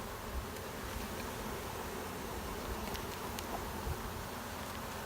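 A swarm of honey bees buzzing steadily around an opened swarm trap, with a few faint clicks.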